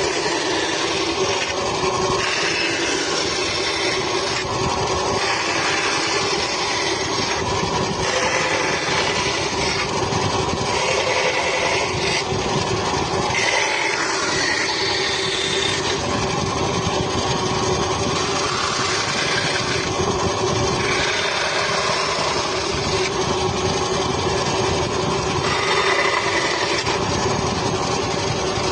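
A power tool running steadily while it works wood, with a rasping, scraping sound that changes every second or two as the cut or pass shifts.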